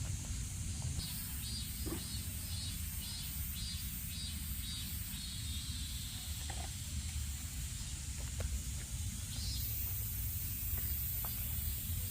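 Forest ambience: a steady low rumble, with a high chirp repeating about twice a second for a few seconds, then a steady high-pitched hiss setting in near the end, with a few faint clicks.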